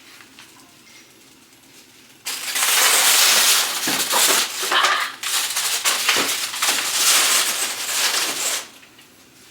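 Plastic wrap on a case of bottled water crinkling and crackling loudly as it is handled. It starts about two seconds in and dies away about a second before the end.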